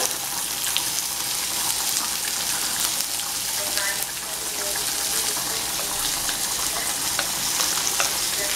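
Sliced calabresa sausage frying in a little oil in a pan, with sliced onion just added: a steady sizzle with scattered crackles.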